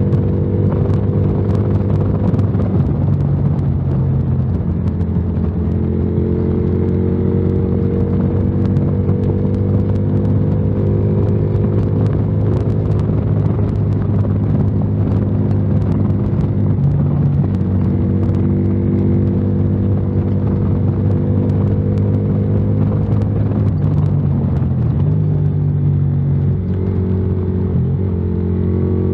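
Yamaha Virago XV535's 535 cc V-twin with a debaffled exhaust, rumbling steadily while riding at road speed. Its pitch rises and falls a little with the throttle.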